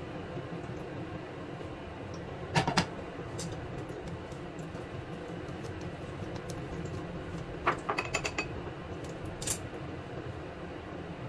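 Kitchenware clinking: chopsticks, a ceramic bowl and a frying pan knocking together, with a few sharp clinks about two and a half seconds in, a quick run of them around eight seconds, and one more a little later, over a steady low hiss.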